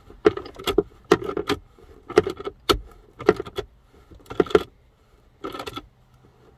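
Repeated short bursts of metallic clicking, about every half second, as a small hand driver is turned back and forth to drive the screws holding the rear of a car's center console.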